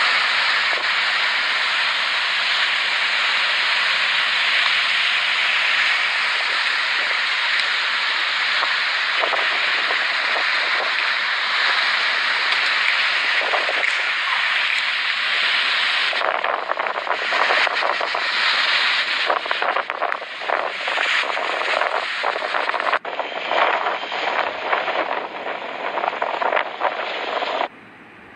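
Typhoon wind and surf breaking along a seawall: a loud, steady rush that turns gusty and uneven about sixteen seconds in, then cuts off abruptly near the end.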